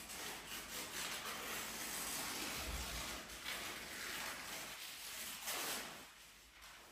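A sheet of newspaper rustling and crinkling as it is picked up, opened and handled, in uneven bursts that die down near the end.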